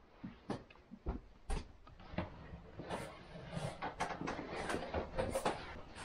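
Clothes and a sheet being picked up and handled: fabric rustling with scattered light knocks and thumps, the rustling thickening about halfway through.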